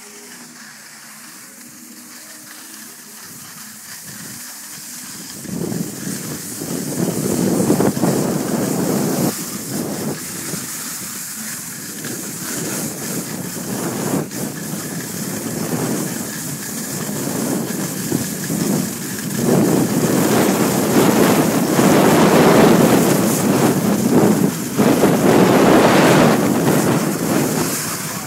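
Skis sliding and scraping over snow with wind rushing over the microphone during a downhill run, a steady rushing noise that starts quietly and grows much louder from about five seconds in as speed builds.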